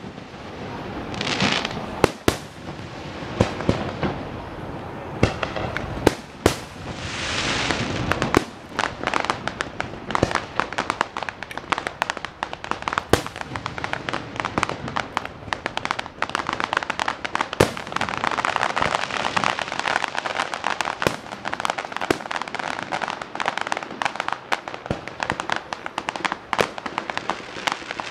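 Fireworks finale: aerial shells bursting. For the first several seconds they come as separate booms, then from about a third of the way in they run into a dense barrage of rapid bangs and crackling.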